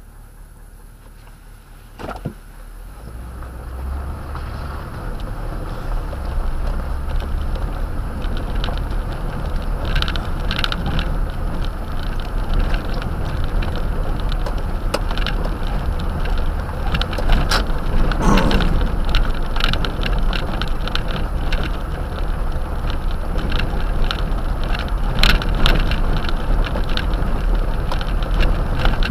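Toyota Tundra pickup pulling away from a stop and driving on a gravel dirt road, heard from inside the cab: a sharp click about two seconds in, then a steady low rumble and tyre noise that build over a few seconds, with scattered clicks and rattles of gravel and the body throughout.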